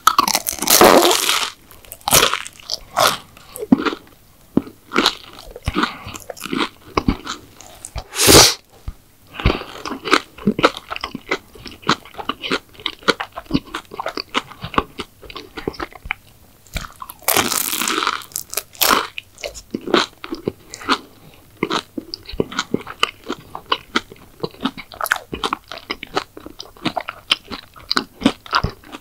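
Close-miked eating of crisp McDonald's sweets: loud crunchy bites about half a second in, at about eight seconds and again around seventeen to eighteen seconds, with rapid crackly chewing between them.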